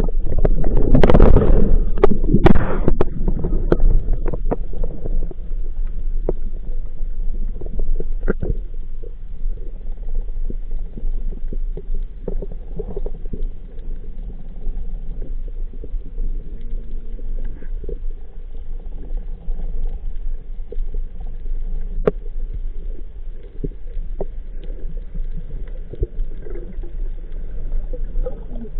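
Muffled underwater sound picked up through a camera housing: a steady low rumble and gurgle with scattered sharp clicks, and a loud rushing burst about a second in.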